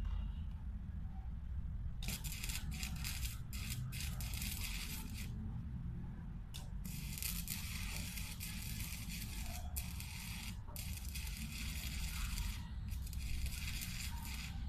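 Electric arc welding on a galvanized iron handrail: the arc's crackling hiss starts about two seconds in, breaks off for about a second and a half midway, then runs again with a few short gaps as the arc is struck and broken.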